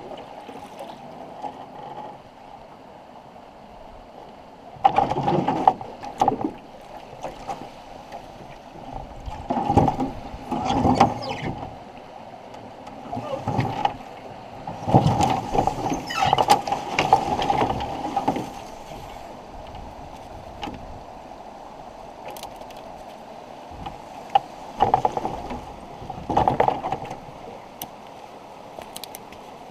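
Footsteps on sand and snow, with scrapes and knocks of a canoe hull as the canoe is boarded and pushed off a sandy riverbank. The sound comes in several irregular bursts with quieter stretches between.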